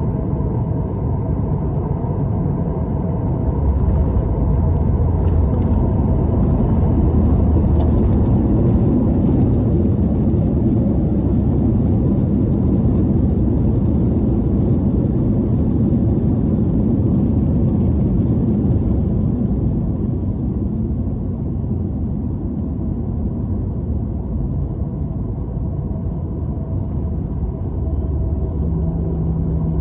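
Steady low rumble of a Boeing 737-900ER's engines and airflow heard inside the cabin by the wing. It grows louder about four seconds in and eases off after about twenty seconds.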